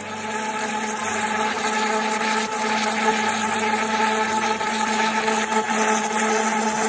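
Electric blender running steadily at one motor pitch, grinding garlic with water and cooking oil into a smooth paste. It grows a little louder over the first second, then holds even.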